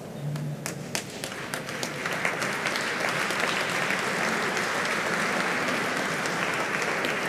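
Audience applauding: scattered claps at first, swelling into steady applause about two seconds in.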